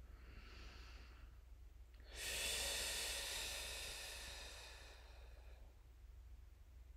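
A woman breathing deeply: a quiet breath in, then from about two seconds in a long, audible breath out that fades away over some three seconds.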